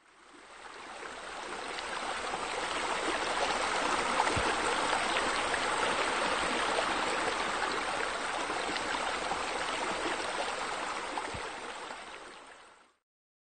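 Running, trickling water, a steady splashing wash that fades in over the first couple of seconds and fades out near the end.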